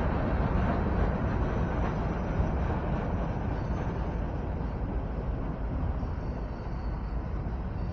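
Freight train passing through a grade crossing: a steady low rumble that eases off slowly.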